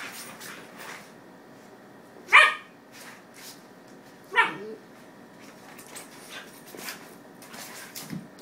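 Schnauzers at play: two short barks about two seconds apart, the second sliding down in pitch. Between them come light scuffles and clicks of the dogs moving on a wooden floor.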